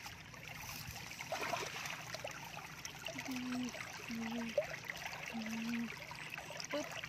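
Shallow muddy water trickling and sloshing around hands groping and digging in it for fish. Three short, low, steady-pitched calls sound in the background, starting about three seconds in.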